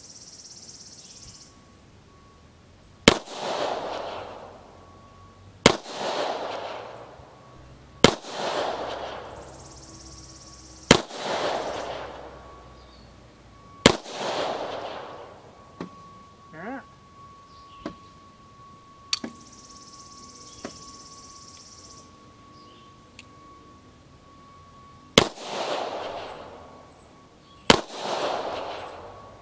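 Seven shots from a Polish P-83 Wanad 9×18 mm Makarov pistol firing full-power handloads, each sharp crack followed by about a second of echo off the stone wall. Five shots come about three seconds apart. Then there is a pause of some eleven seconds with a few light clicks and knocks as a feeding hang-up is cleared, then two more shots.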